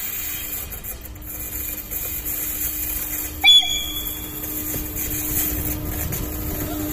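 Czech 'Eso' electric locomotive running in slowly with passenger coaches, a steady hum over the rumble of the train. About halfway through it gives one short, sharp horn toot, the loudest sound; the rumble grows as it draws alongside near the end.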